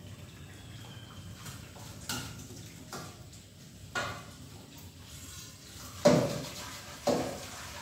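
Metal pots and dishes knocking together while being washed at a kitchen sink: a few light clinks, then two louder clanks near the end that ring briefly.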